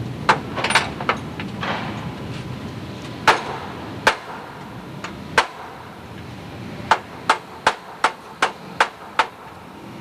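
Hammer blows during construction of a framework: a few scattered strikes, then a run of seven evenly spaced blows, about three a second, near the end.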